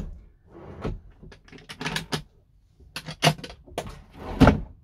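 Kitchen drawers in a campervan being pulled open and pushed shut: a run of clicks, rattles and knocks from the drawer runners and fronts, with the loudest knock near the end.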